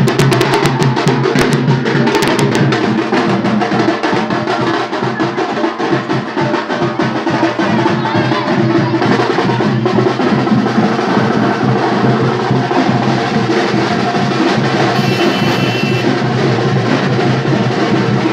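Electric wet grinder running with a steady motor hum and a continuous rattling clatter from its rotating drum and stones.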